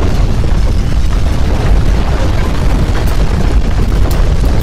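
Loud, continuous deep earthquake rumble with a rough, noisy hiss over it and a few sharp clicks in the second half.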